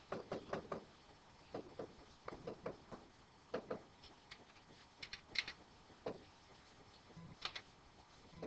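Faint, irregular clicks and taps that come in small clusters, with short gaps between them.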